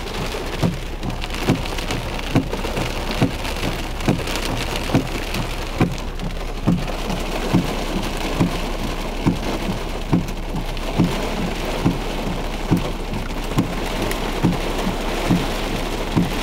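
Heavy rain drumming on a car, heard from inside the cabin, with a soft low knock repeating steadily a little more than once a second.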